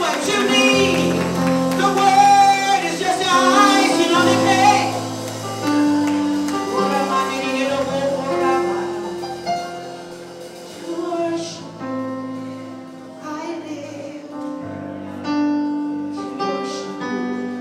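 Gospel worship song: a woman singing with vibrato over sustained accompaniment chords, her voice loudest in the first few seconds and lighter after that.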